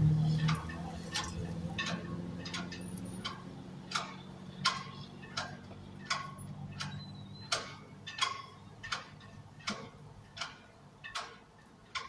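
A vehicle's turn-signal/hazard flasher ticking steadily inside the cab, about one and a half clicks a second, over a low hum that fades away in the first few seconds.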